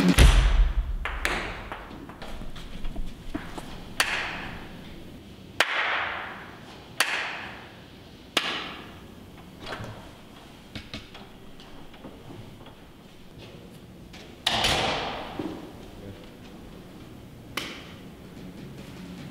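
Table tennis rally: sharp hits of the ball, about one every one and a half seconds, each ringing out briefly, then a pause, a heavier hit with a longer fading tail, and one last hit near the end.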